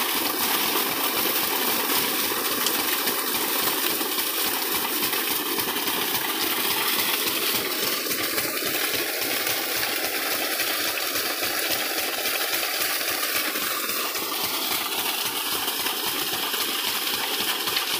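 Water gushing hard from an irrigation pump's outlet pipe and splashing onto the ground, over the steady running of the 12 hp diesel engine that drives the pump by belt. The sound holds steady, with no change in engine speed.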